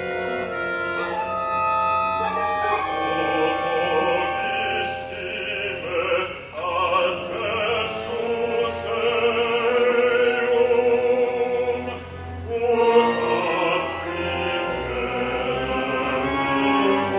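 Live performance of a modern opera for orchestra, choir and soloists: held orchestral chords, then a voice singing with a wide vibrato over the ensemble from about three seconds in, with a brief drop in loudness near the end.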